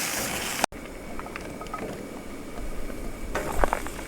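Steady hiss of food cooking in a pot on a camp stove, cut off abruptly under a second in. Then scattered light clicks and taps of cooking utensils, with a low rumble in the second half.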